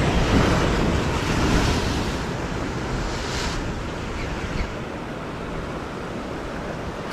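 Ocean surf breaking and washing over rocks, with wind on the microphone; louder in the first couple of seconds, then easing.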